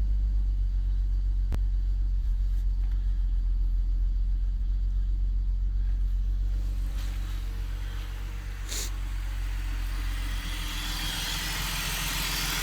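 BMW 330Ci's inline-six idling with a steady low rumble, with one short click about nine seconds in. In the last few seconds a loud hiss rises and the idle turns uneven; the owner takes the hissing and rough idle for a vacuum leak.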